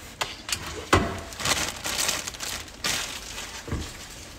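Crinkling and rustling handling noise, like packaging being handled, broken by several sharp clicks and knocks. The loudest click comes about a second in.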